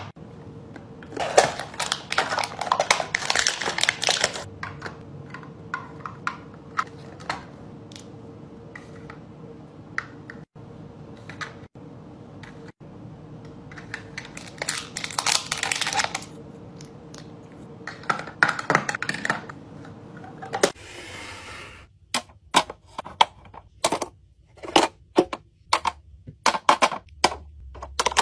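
Small hard plastic toy pieces clicking and clattering as hands handle them: clusters of rapid clicks, then from about three-quarters of the way in, sharper separate taps.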